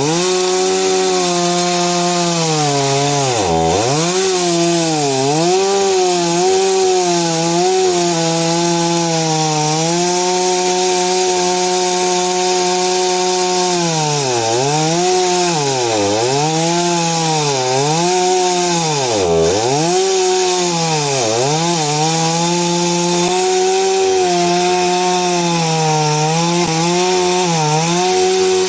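Two-stroke chainsaw running at high revs and cutting through wood, its engine note repeatedly dipping sharply as the chain bogs down in the cut and then climbing back, with a longer steady stretch at full speed in the middle.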